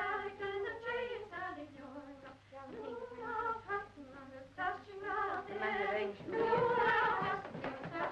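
Women singing a Gaelic waulking song, the work song sung while tweed is beaten and shrunk by hand. The singing grows louder about three-quarters of the way through.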